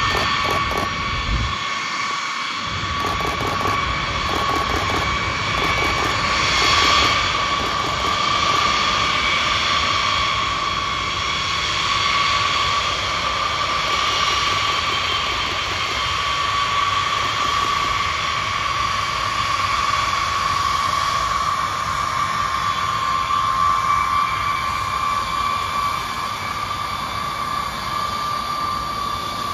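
Jet engines of a B-52H Stratofortress running at low taxi power: a steady, high whine over a rushing noise.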